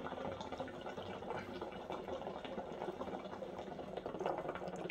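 Water bubbling steadily in a stainless-steel Retrofit Amalgam hookah as smoke is drawn through the hose, a dense stream of small bubbles, while the hookah's adjustable diffuser is being turned.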